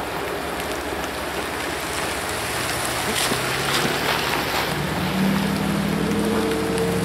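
Road vehicles driving over the railroad grade crossing close by: tyre and road noise swelling as one car passes about three seconds in, then a second vehicle's engine humming as it pulls up and starts across.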